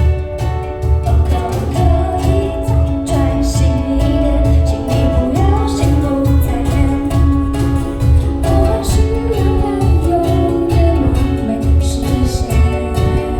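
Live amateur band playing a pop song: a singer over strummed ukuleles, with drums keeping a steady beat.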